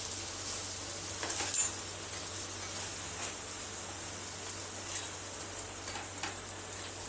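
Oil sizzling steadily under a paneer-stuffed paratha frying in a nonstick pan, with a few light clicks of a steel ladle spreading oil over it, the sharpest about a second and a half in.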